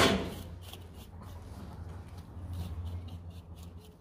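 Knife blade scraping the charred hair and skin off a singed sheep's head, in quick repeated strokes about three a second.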